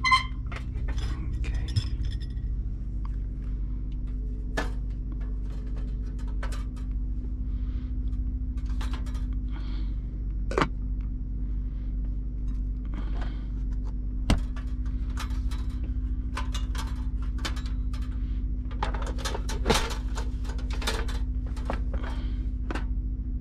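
Clinks, clicks and knocks of dishes and cookware being handled (a spoon with a bowl and soup pot, a plate of biscuits, and a portable camping gas stove's plastic case), scattered through, over a steady low mechanical hum.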